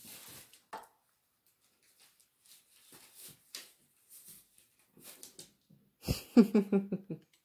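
A cat playing in a cardboard box, making scattered light scuffs and rustles. About six seconds in there is a thump, then a louder second-long run of rapid low pulsing rubs.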